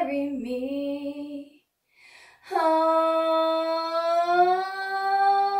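A woman singing unaccompanied. A held note fades out about a second and a half in, then comes a short breath, then one long held note that steps up in pitch near the end.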